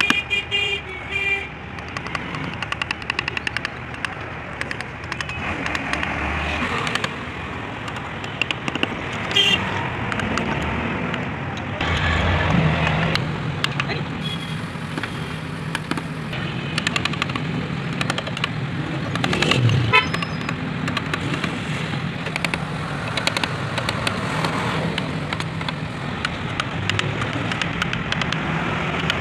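Hand-pushed carving gouge cutting and scraping through wood, many small crisp cuts, over steady road-traffic noise. A vehicle horn toots several times in quick succession right at the start.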